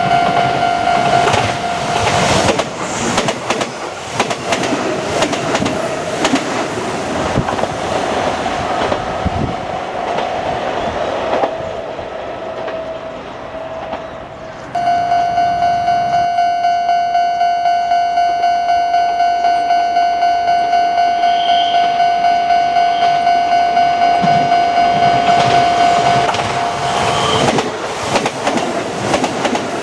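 A railway level-crossing warning bell ringing in a fast, even beat, while trains pass over the crossing with their wheels clattering on the rail joints: one passes in roughly the first ten seconds and another near the end. Between the two trains the bell is heard on its own.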